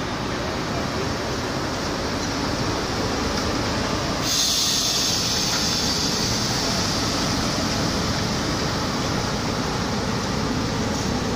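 Indian Railways locomotive running close by with a steady low rumble as it is brought up against a coach to couple. About four seconds in a loud hiss starts suddenly and goes on, slowly fading.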